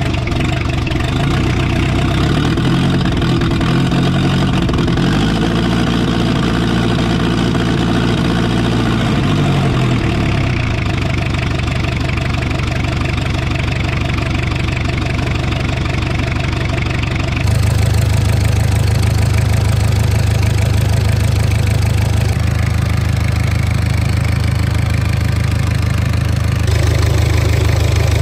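The 2.2-litre Perkins four-cylinder diesel of a 1984 Mazda B2200 mini truck idling steadily as it warms up. About five seconds in its pitch rises, holds for a few seconds and drops back to idle.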